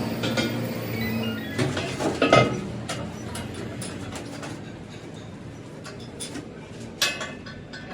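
Scattered light metal clinks and knocks, the loudest about seven seconds in.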